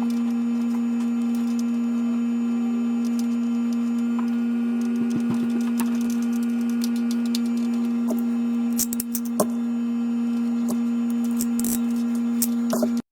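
A loud, steady hum held on one pitch, with scattered light clicks and ticks over it, cutting off suddenly near the end.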